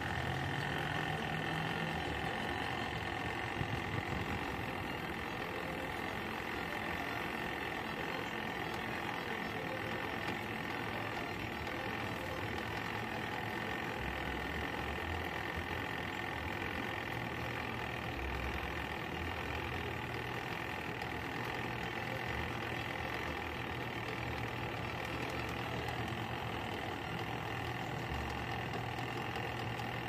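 Costway twin-tub mini washing machine's spin motor running steadily with a hum, the spin basket turning too slowly to spin the clothes dry, which the owner puts down to too much water or too many clothes in it.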